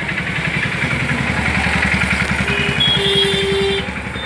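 A vehicle engine running with a steady rapid pulse, swelling and then dropping away shortly before the end, with a short steady high tone about three seconds in.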